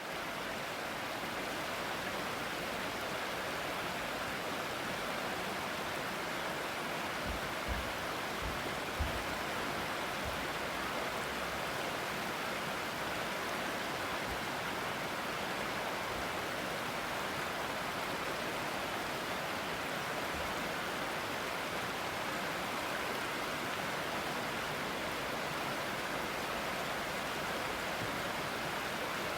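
Waterfall: the steady, even rush of falling water, with a few brief low thumps about eight and nine seconds in.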